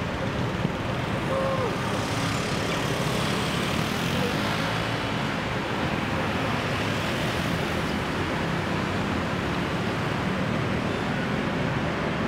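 Steady city traffic noise from cars and motorbikes passing on a busy street.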